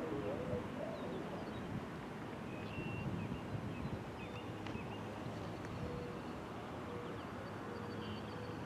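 Quiet outdoor ambience between siren voice messages: a low steady background rumble with faint, short bird chirps now and then.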